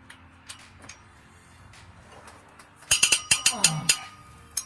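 Head bolt on a Toyota 2ZR-FXE cylinder head being turned through its final 45-degree angle-torque pass with a wrench. After a quiet start, a quick run of about eight sharp metallic cracks with ringing comes over about a second, and one more click follows just before the end. The cracks are the bolt and wrench letting go under the heavy load of angle-torquing.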